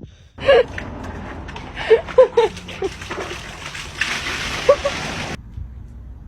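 Dogs splashing in water, with a few short high cries among the splashes. The sound starts abruptly just after the start and cuts off suddenly about five seconds in.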